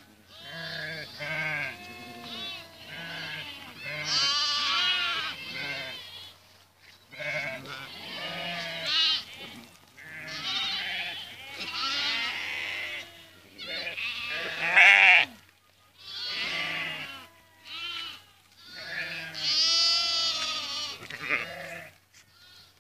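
A flock of sheep bleating: many overlapping calls, one after another with short pauses, and one much louder, closer call about fifteen seconds in.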